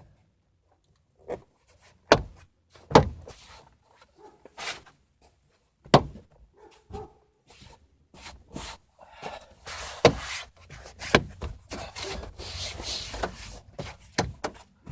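Plastic car door panel and trim pieces being handled and fitted back on: a series of sharp knocks and clicks, then a stretch of rubbing and scraping in the second half.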